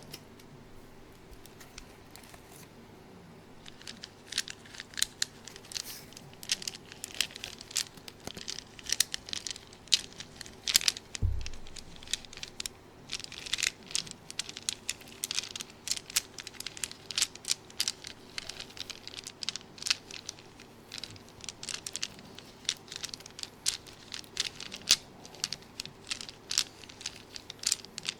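Irregular crinkling and crackling, a dense run of sharp rapid clicks that starts about four seconds in, with one low thump near the middle.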